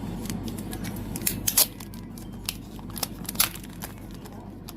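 Packaging being handled during an unboxing: a few sharp clicks and crinkly rustles, the loudest about a second and a half and about three and a half seconds in.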